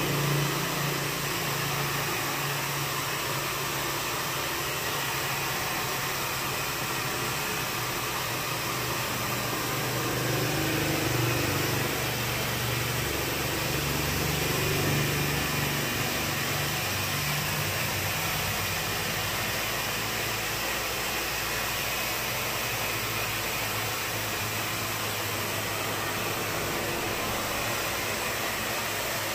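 Steady whir and hiss of a small motor blowing air, running without a break.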